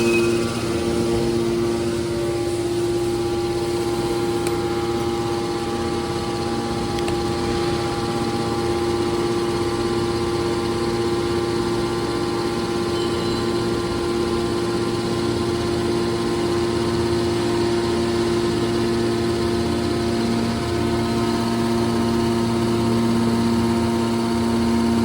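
Scrap metal baler press machine running: a steady mechanical hum with several constant tones that holds the same pitch throughout.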